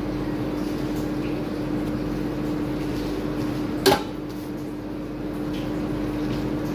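Steady machine hum of a kitchen appliance or ventilation, with one sharp knock of something hard set down about four seconds in.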